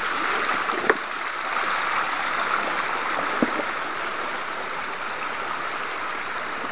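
Steady rushing of a stream of running water, with two brief knocks, about a second in and again past three seconds.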